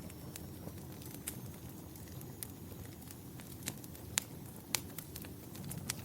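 Wood fire crackling in a fireplace: irregular sharp pops and snaps over a low, steady rumble of the flames, with a few louder pops in the second half.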